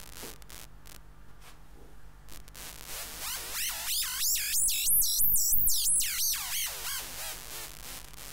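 DIY analogue synthesizer's Triple Toasted Oscillator, its three oscillators in unison, giving a high warbling tone whose pitch swoops up and down in quick arcs under combined LFO and envelope-generator modulation. The sweeps climb higher and louder toward the middle, then fall away, over a steady low hum.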